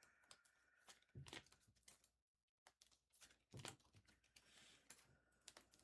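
Near silence with faint rustles and a few soft taps of trading cards being handled, the clearest about a second in and again near the middle.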